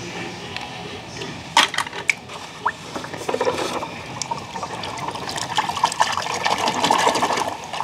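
Water splashing as a hand moves through a shallow tray of muddy water: a few sharp splashes about a second and a half in, then continuous churning and sloshing that builds over the last few seconds.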